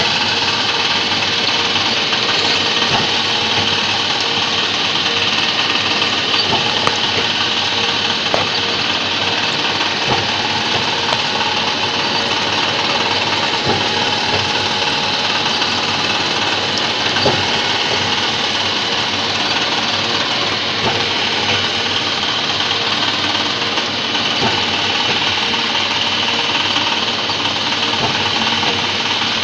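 Four-axis Hitachi CNC milling machine cutting metal: a steady mix of spindle whine and cutting noise, with a few faint ticks now and then.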